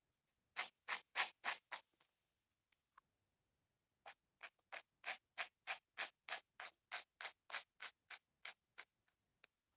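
Hairbrush bristles stroking through a vintage Barbie doll's hair in quick, scratchy strokes. There are five strokes, a pause of about two seconds, then a steady run of about three strokes a second.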